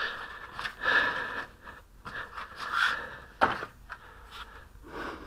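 Hands rubbing and scraping on a putty board as they gather dried putty scraps and work a lump of old glazing putty, in several soft swells, with one sharp knock about three and a half seconds in.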